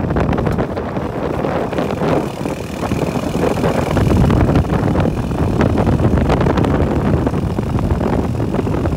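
Motorcycle riding along a road: loud wind buffeting the microphone over the running engine and road noise.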